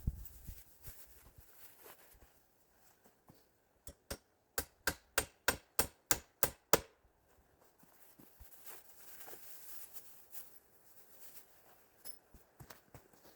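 A quick run of about nine sharp knocks, roughly three a second, coming about four seconds in and stopping under three seconds later; only faint rustle is heard around them.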